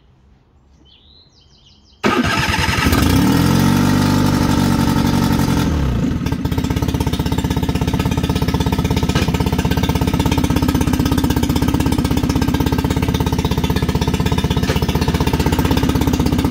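Honda 9.9 hp four-stroke outboard motor starting about two seconds in; its speed rises and then drops back over a few seconds before it settles into steady running. It is being run out of water on a stand, against recommendations, as a vibration test.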